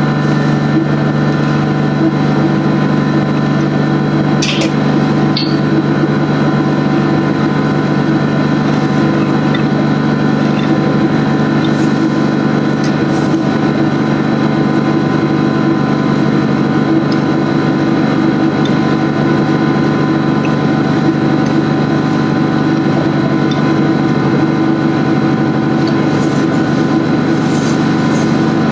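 Machinery running steadily with a constant, unchanging hum, a few light clicks heard briefly over it.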